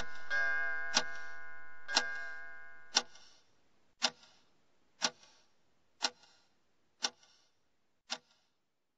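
A clock ticking once a second, under a ringing, many-toned sound that fades away over the first three seconds; the ticks grow fainter toward the end.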